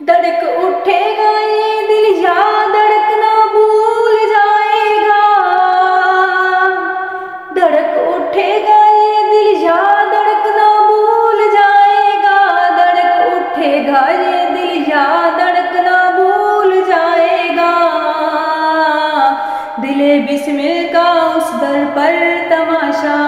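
A woman singing an Urdu naat solo and unaccompanied, in long held phrases whose pitch steps up and down, with a short break for breath about seven and a half seconds in.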